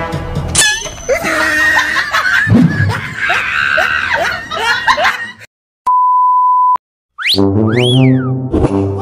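Edited comedy-clip soundtrack: music mixed with gliding sound effects, then a brief gap and a steady beep about a second long, a whistle-like tone that rises and falls, and music again.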